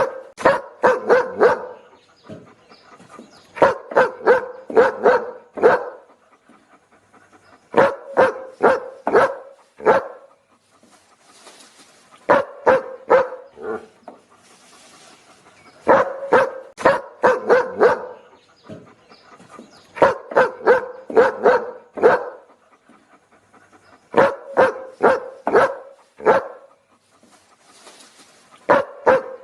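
A dog barking in volleys of five or six quick barks, a new volley about every four seconds.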